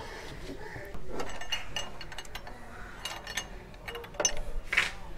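Ratchet handle and socket clicking in short, irregular runs while tightening a plastic oil filter cap.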